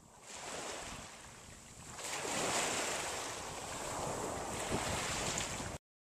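Steady rushing noise that fades in, grows louder about two seconds in, and cuts off abruptly near the end.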